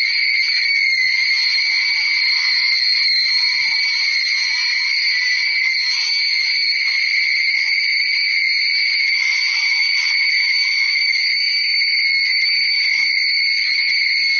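A sneeze sound digitally layered over itself an enormous number of times, merged into a steady, loud, high-pitched buzzing drone with two piercing tones that never change.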